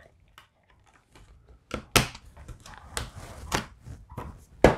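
Blu-ray discs and the steelbook's plastic disc tray being handled: after about a second and a half comes a series of sharp plastic clicks and taps, with the loudest click near the end.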